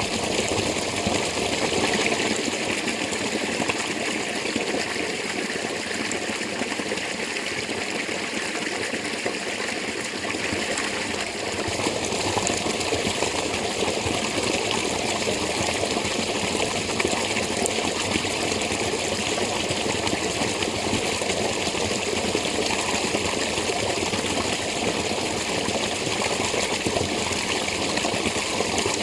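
Spring water running steadily, an even rush of flowing water with no breaks.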